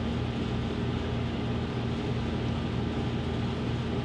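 A running fan's steady low hum, with a faint steady tone through it.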